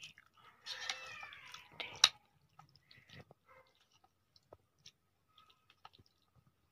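Spoon clicking and scraping in a ceramic bowl of macaroni, with chewing and a sharp clink just after two seconds. A short falling cry, like a cat's meow, comes about a second in.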